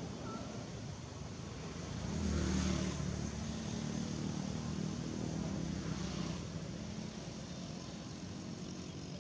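A motor vehicle's engine passing by, swelling about two seconds in, loudest soon after, and fading away by about six seconds in.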